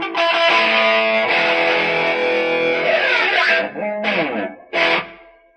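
Electric guitar played through a Wizz Distortion 2020 distortion pedal. A held, distorted chord slides down in pitch about three seconds in. Two short chord stabs follow and ring out.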